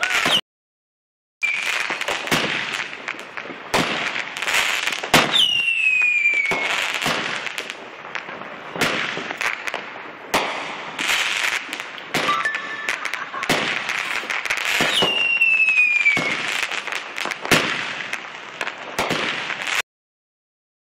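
Fireworks and firecrackers going off all around: a dense string of sharp bangs and crackling, with several falling whistles, the clearest about 5 and 15 seconds in. The sound cuts out completely for about a second near the start and again near the end.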